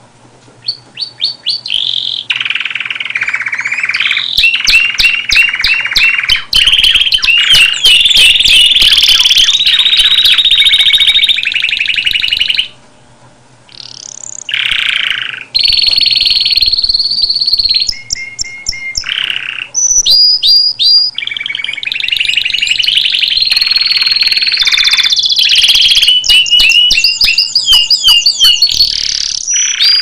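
Domestic canary singing: long fast trills and rolls of repeated notes mixed with held whistled tones, broken once by a pause of about a second and a half near the middle.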